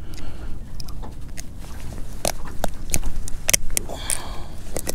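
Sharp clicks and snaps of metal fishing pliers working a hook out of a blue catfish's mouth, several in the second half, with a short rasp about four seconds in.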